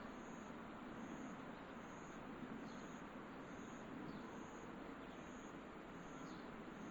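Quiet outdoor ambience: a faint low rumble with a short, high chirp repeating evenly a little over once a second, and a few brief falling calls.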